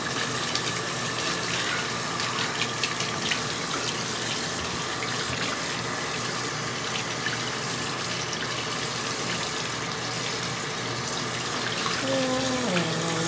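Bathroom sink tap running in a steady stream, left on while the water is still warming up from cold.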